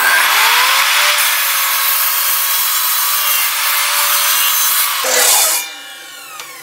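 Electric miter saw cutting through melamine board: the blade runs at full speed through a loud cut lasting about five seconds, then the motor is released and the blade winds down with a falling whine.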